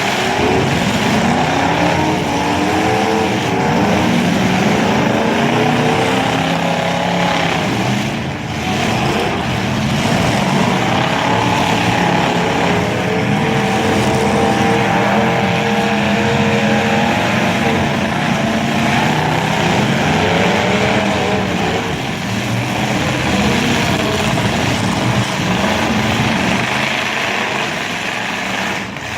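Demolition derby car engines revving, several engine notes rising and falling over one another.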